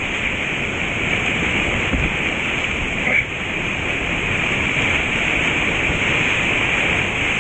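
Whitewater rapid rushing and churning right around the camera, a steady loud wash of water noise with no break.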